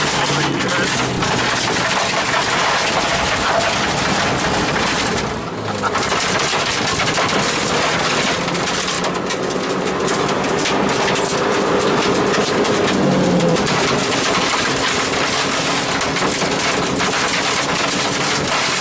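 Rally car driven hard, heard from inside the cabin: the engine revs up and down through the gears, with a brief drop in engine note about five seconds in, over loud tyre and road noise and rattling from the car.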